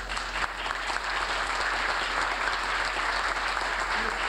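Audience applauding: many hands clapping in a steady, even spatter.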